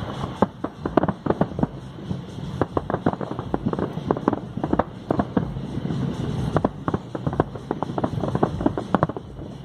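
A rapid, irregular series of sharp cracks and pops, several a second, over a steady low rumble.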